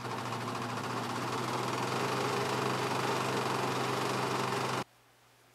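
Pfaff Hobbylock 788 serger (overlocker) running at speed as it stitches fabric, a steady motor hum with a fast, even needle rhythm. It stops abruptly near the end.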